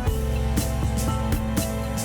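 Background music with a steady beat: pitched instrument notes over regular drum hits.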